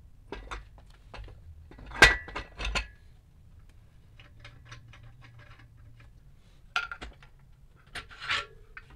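Metal clanks and clinks from a Volkswagen air-cooled engine crankcase half being handled against the engine stand and parts. The loudest is a sharp knock with a brief ring about two seconds in, followed by a few more knocks, lighter taps in the middle, and two more clanks near the end.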